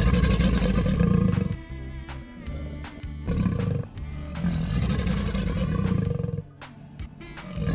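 A monster's roar sound effect, heard in several long roars with breaks between them, over background music.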